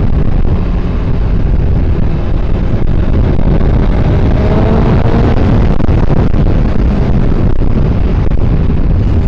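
Motorcycle riding with heavy wind buffeting on the helmet microphone, the engine running underneath, its note rising briefly around the middle.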